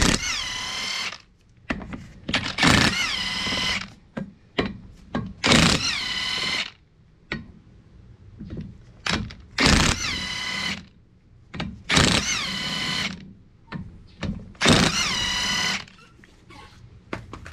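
Metabo HPT MultiVolt cordless impact wrench backing out the bolts that hold a Nissan Pathfinder front hub to its brake rotor. There are six bursts of about a second each, one per bolt. Each starts with a rising whine and settles into a steady hammering rattle. Light metal clicks come between the bursts.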